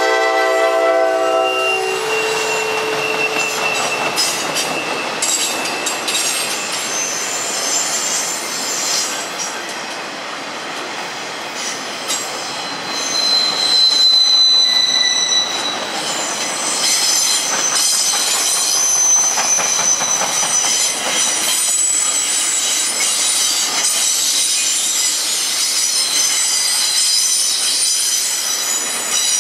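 An empty rail train's freight cars roll past, their wheels clattering on the track with a high-pitched wheel squeal that comes and goes. The squeal is loudest about halfway through. The locomotive's horn trails off about two seconds in.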